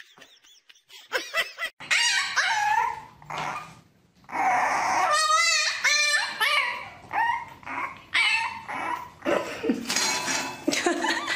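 Puppies whining and yipping in high, wavering cries, with a few short barks.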